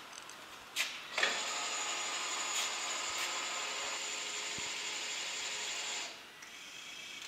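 Lift motor of a Tiller liftmobile bag lifter running steadily for about five seconds, driving its platform up, then cutting off; a couple of knocks just before it starts.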